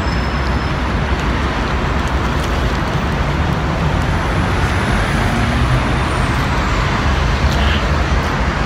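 Steady city street traffic noise, an even rumble heaviest in the low end.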